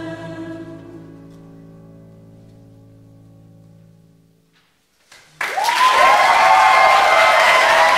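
A choir's final held chord dying away over about four seconds, then a brief hush, then loud applause breaking out suddenly about five and a half seconds in.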